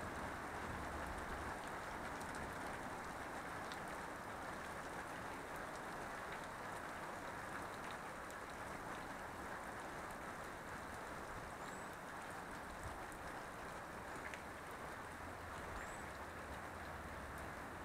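Steady rain falling on garden plants and wet ground, an even hiss. Two faint short high chirps come through, about twelve and sixteen seconds in.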